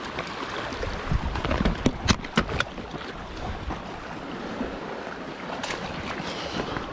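Wind buffeting the microphone over shallow seawater washing among shore rocks. A few sharp clicks come about two seconds in.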